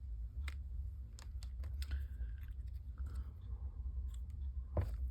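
Small cut cardstock pieces being handled on a work surface: scattered light clicks and taps, with one louder tap near the end, over a low steady hum.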